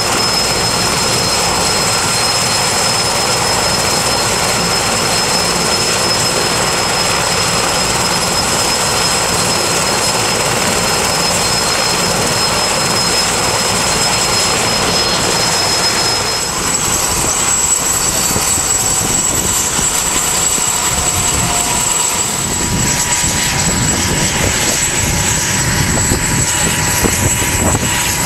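Erickson S-64 Air-Crane helicopter running on the ground with its rotors turning: a loud, steady turbine whine over the rotor noise. A little past halfway the sound shifts and the whine is replaced by a higher one.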